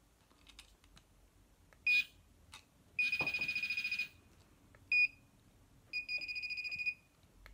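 Sunece waterproof metal-detecting pinpointer beeping in a high tone: a single short beep about two seconds in, then about a second of rapid beeping, another short beep, and another second of rapid beeping near the end. The rapid beeping is the pinpointer's alert for metal close to its tip.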